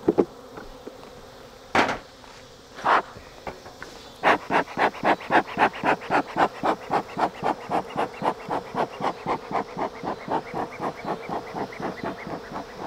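Honey bees buzzing steadily around an open hive: robber bees working its honey. From about four seconds in, a quick regular run of short whooshing strokes, about four a second, grows gradually weaker.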